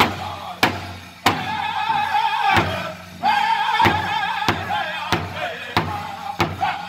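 Powwow drum group singing a men's chicken dance song in high, strained voices while striking a large hide-covered powwow drum in unison, about one and a half beats a second. The singing breaks off briefly about three seconds in, then comes back in.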